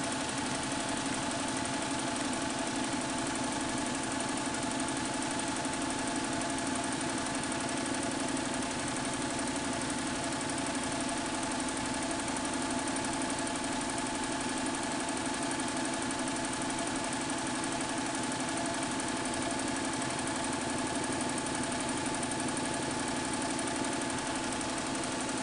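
Melco EMC 10/4T four-head commercial embroidery machine running, its heads stitching together with a rapid, steady needle clatter.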